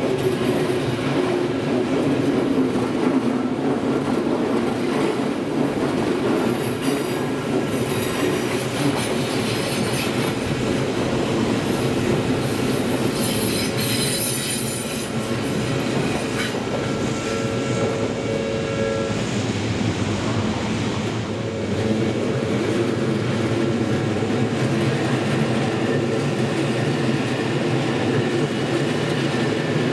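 Odakyu electric commuter trains running slowly over a level crossing on the approach to Shinjuku station, wheels rumbling and clacking over the rail joints. High-pitched wheel squeal comes in from about a quarter of the way through to about halfway.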